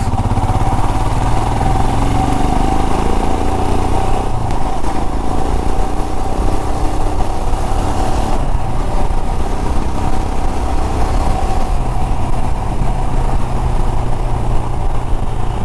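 Royal Enfield Himalayan's 411 cc single-cylinder engine running as the motorcycle is ridden at low speed, its note rising a couple of seconds in as it pulls away. A steady whine runs above the engine.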